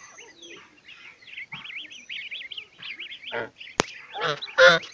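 Goslings peeping in rapid, wavering high chirps, and from about three seconds in an adult domestic goose gives several short honking calls, the loudest near the end. A single sharp click just before four seconds.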